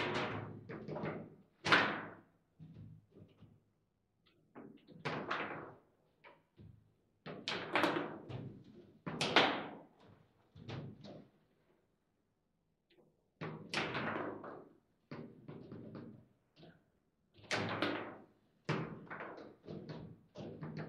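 Foosball table in play: irregular sharp clacks and knocks of the ball striking the plastic player figures and the table walls as the rods are worked. They come in bursts, with a short lull past the middle.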